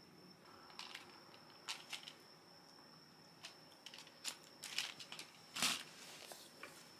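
Cardboard chocolate box and a wrapped package being handled: a string of short crinkles and rustles, the loudest about five and a half seconds in, over a faint steady high tone.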